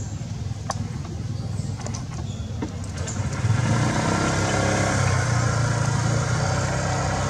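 A motor vehicle's engine running steadily, growing louder about three and a half seconds in.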